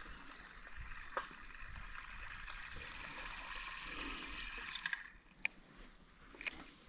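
A Shimano Twinpower 3000 spinning reel being wound in, a steady hiss of braid coming through the guides that stops about five seconds in, followed by a couple of sharp clicks.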